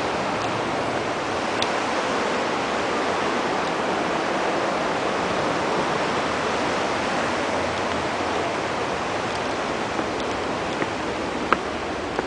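River water rushing and foaming over rocks: a steady, even rush. A few small sharp clicks sound near the end.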